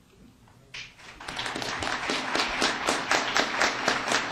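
Audience applauding, the clapping starting about a second in as a dense patter of many hands.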